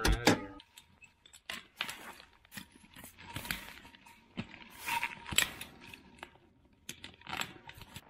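Gloved hands tying barbed wire to a steel T-post: scattered metallic clicks, scrapes and jingles of wire against the post, loudest about five seconds in and again near the end.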